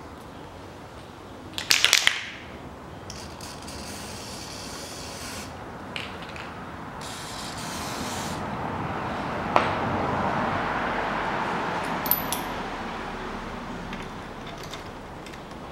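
Aerosol lubricant can spraying in several hissing bursts onto a crankshaft main bearing cap during engine assembly. Metal parts clink and clank against each other, with a loud clatter about two seconds in and sharp clinks near the end.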